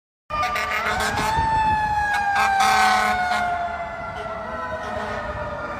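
Fire truck siren wailing: the pitch climbs over about a second, then falls slowly for several seconds, over street noise.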